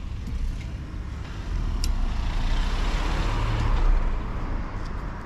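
Street traffic noise: a car passing, swelling about halfway through and easing off, over a steady low rumble of wind on the microphone. One short click about two seconds in.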